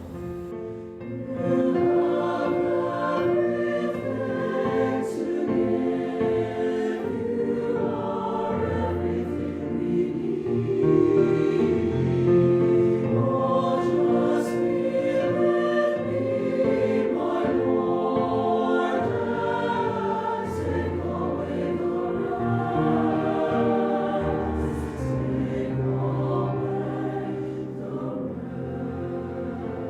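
A youth choir singing a slow sacred song in several-part harmony over sustained low accompaniment. The music swells up about a second and a half in.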